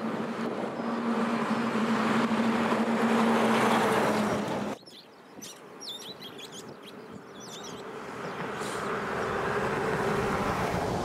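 Boeing 737 jet engines running, a loud rushing noise with a steady hum. It cuts off abruptly a little under halfway through. A second Boeing 737's engine noise then rises slowly from faint to loud, with a few high chirps over it.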